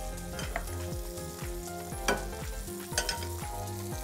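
Tuna steaks sizzling steadily as they fry in garlic butter in a pan, with a few light clicks of utensils against the pans.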